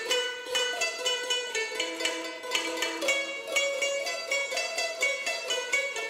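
Several yueqin (Chinese moon lutes) plucked together in a quick melody, a run of bright picked notes several per second.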